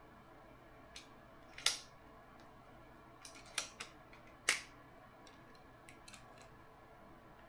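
Sharp metallic clicks and clacks from a metal super clamp, ballhead arm and camera mount being handled and fitted together, about half a dozen in all, two of them louder.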